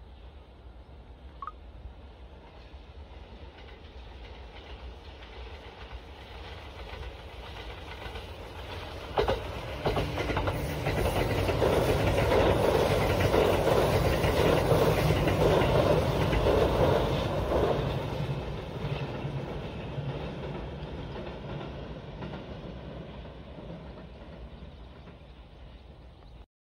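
A train running on the rails, its rumble and clatter building up, peaking about halfway, then fading away, as a passing train does. A couple of sharp clicks come as it nears its loudest, and the sound cuts off suddenly just before the end.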